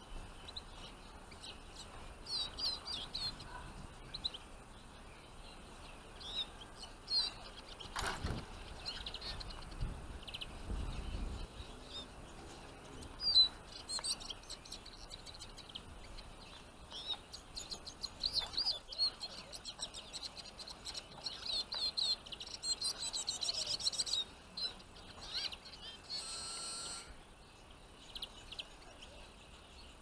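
Small finches, Eurasian siskins and goldfinches, chirping and twittering in short high calls scattered throughout, busiest in the second half. A single sharp knock comes about eight seconds in.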